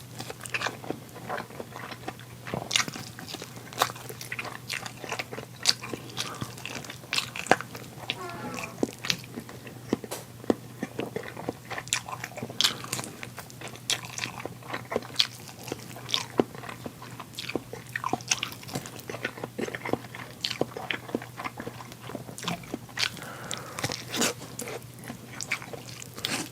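A person biting and chewing food, with many quick wet clicks and crunchy snaps in an irregular stream, over a steady low hum.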